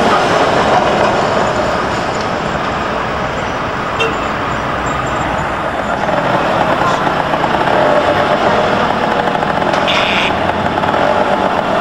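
Steady city street traffic noise as an old Peter Witt tram and then a trolleybus pass, with a brief high hiss about ten seconds in.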